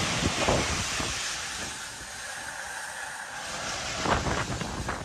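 A multi-storey concrete building collapsing: a long rushing rumble of falling rubble that fades over a couple of seconds, then a cluster of cracks and thuds from debris about four seconds in.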